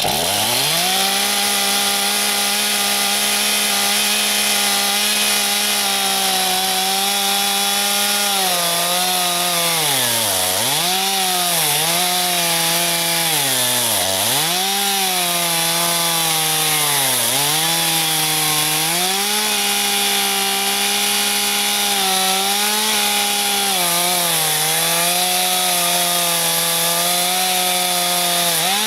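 Stihl two-stroke chainsaw revved up to full throttle and cutting through lumber. The engine pitch sags and recovers several times as the chain loads up in the cut.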